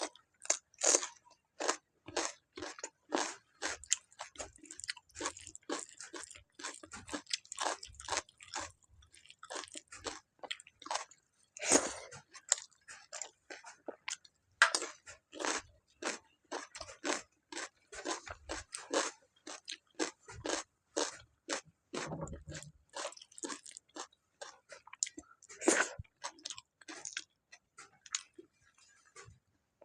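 A person chewing and biting food close to the microphone: a run of wet chewing sounds and crunches, a few every second, with no let-up.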